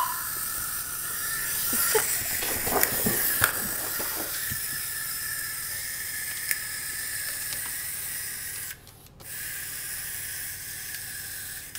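Small clockwork wind-up bug toy running after being wound, its spring-driven gears giving a steady high whir.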